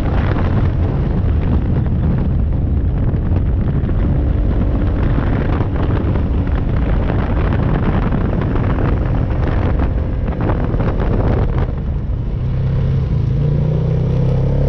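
A vehicle engine running steadily, with a rising pitch near the end as it revs up.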